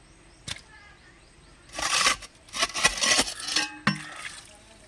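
Metal clinking and scraping against concrete, with the core drill not running: a sharp click about half a second in, a short scraping rattle around two seconds, a longer run of scraping and clinks about a second later, and a knock near the end.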